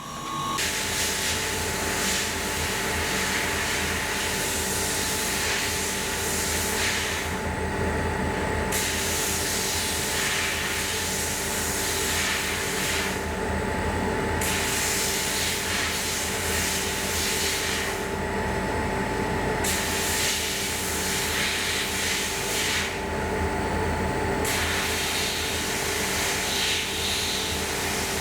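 Electric sander running steadily on aluminium plates: a constant machine hum with a wide hiss over it. The hiss briefly drops away four times, about every five seconds.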